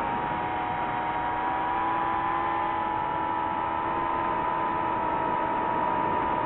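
DJI FPV drone's motors and propellers whining steadily, several tones held together with small drifts in pitch over a hiss of rushing air.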